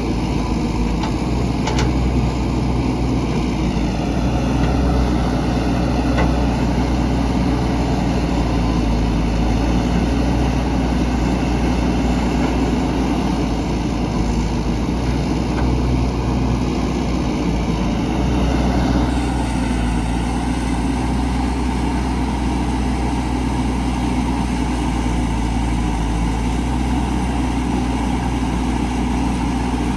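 Heavy construction machinery's diesel engine running steadily, a continuous low drone whose tone shifts slightly about two-thirds of the way through.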